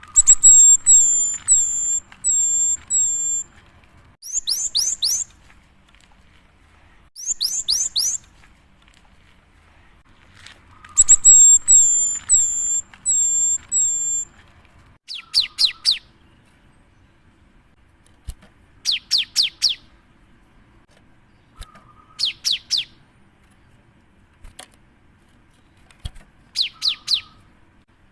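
Cinereous tit (gelatik batu) singing in repeated high phrases. Some phrases are strings of short whistled notes, others are quick bursts of four or five sharply descending notes, with pauses of a second or two between phrases.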